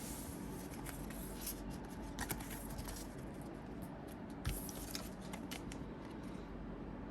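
Pokémon trading cards being handled and slid against one another: faint, scattered rustles and clicks, with one soft knock about four and a half seconds in.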